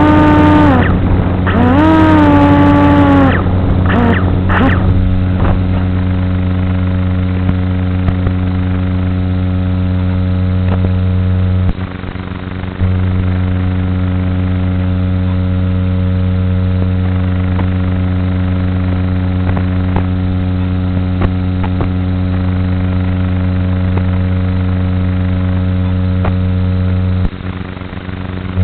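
Electric motor and propeller of an FPV wing running at steady throttle, a steady hum made of several tones. Its pitch bends up and down for a moment near the start, and the hum dips briefly twice.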